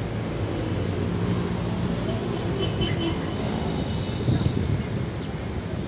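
Steady low engine rumble of urban motor traffic, with faint high squeaks near the middle.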